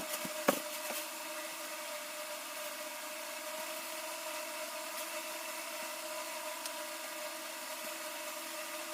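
Steady hum of a running motor, holding an even pitch, with a few light clicks just at the start.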